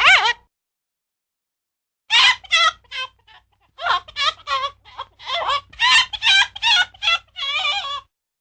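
Cartoon chicken sound effect: a short squawk right at the start, then after a pause of about two seconds, quick runs of voiced clucks and bawks with wobbling pitch, the last call a little longer.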